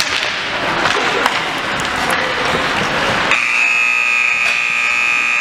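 A game scoreboard buzzer sounds one steady, loud tone, starting about three seconds in and held for more than two seconds, over general arena noise.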